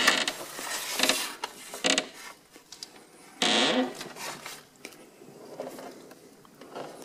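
A door being pushed open, creaking and scraping loudest about three and a half seconds in, among scattered knocks and rustles of handling.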